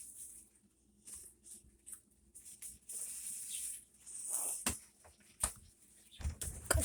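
Rustling and handling noises with a few sharp clicks, then heavy low thumps near the end as a person falls.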